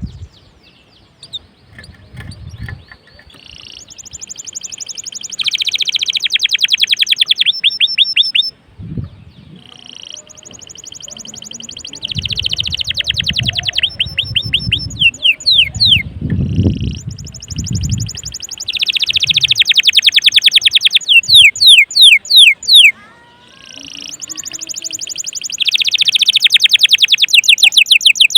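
Domestic canary singing loudly in repeated phrases about every seven seconds, each a fast rolling trill followed by a run of quick downward-sweeping notes. Some low thumps sound under the song in the middle.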